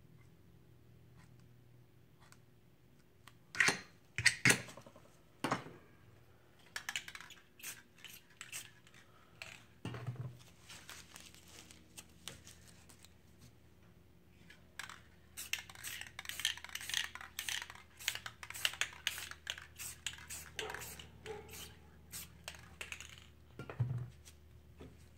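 Handling sounds at a work table: irregular metal clinks, taps and light scraping in clusters. There are three loud knocks around four to five seconds in, a dense run of clicks in the latter half, and a dull thump near ten seconds and again near the end.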